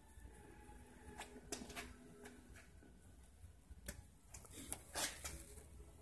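Quiet room tone with a steady low hum, broken by a handful of faint, sharp clicks and taps, the loudest about five seconds in.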